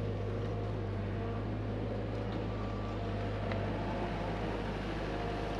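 Hyundai HX85A excavator's diesel engine running at a steady speed, an even hum with a strong low drone.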